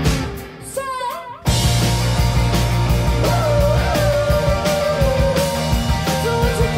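Live rock band with female lead vocals, viola, electric guitar, bass and drums. The band drops to a brief quiet break, then comes back in at full volume about a second and a half in, with singing over it.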